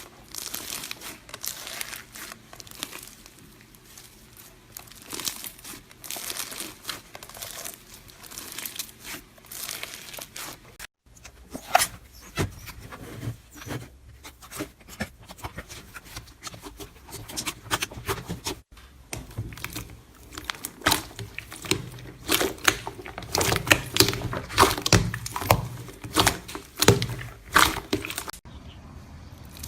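Slime being squeezed, poked and stretched by hand, giving a dense run of crinkly, crackling clicks and pops. The sound cuts out abruptly about eleven seconds in and again near nineteen, where one clip gives way to the next. The pops grow busier and louder toward the end.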